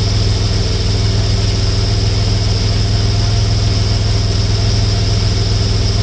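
1992 Toyota 4Runner engine idling steadily with the air conditioning switched on, while the system is charged with R-134a.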